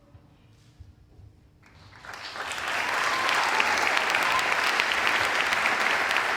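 Audience applause: a short near-quiet pause, then clapping swells up about two seconds in and holds steady.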